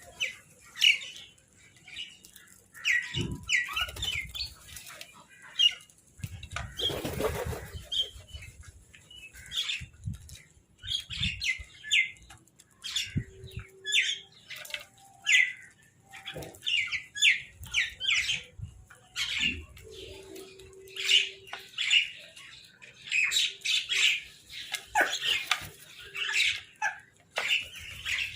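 A group of crows calling over and over in short caws, with a rustle of flapping wings about seven seconds in.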